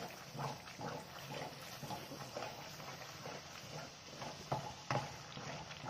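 Wooden spatula stirring and scraping thick, coarse almond halwa cooking in ghee in a non-stick kadai, in quick irregular strokes about twice a second, with a couple of louder strokes near the end.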